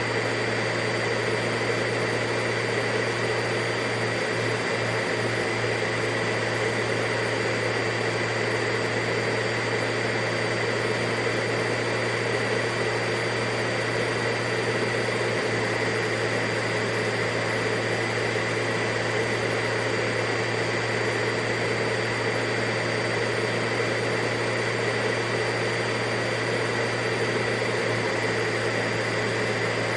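Vacuum cleaner running steadily: a rush of air over a low hum and a high whine, holding the same pitch and level throughout.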